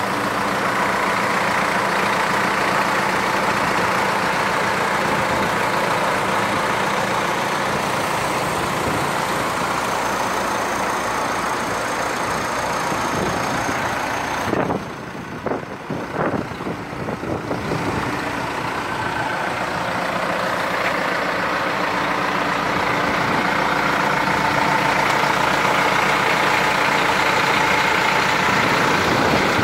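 Caterpillar 428E backhoe loader's diesel engine idling steadily. About halfway through the sound briefly goes quieter and duller, with a few short knocks, then returns.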